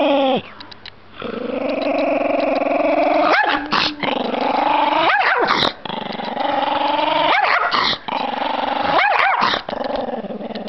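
Chihuahua growling in long, steady stretches, broken about four times by a short sharp bark or snarl: an angry, provoked dog warning at close range.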